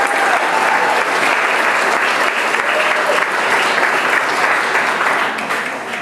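Audience clapping and cheering for a student whose name has just been called, with a few whoops over the clapping; it eases off near the end.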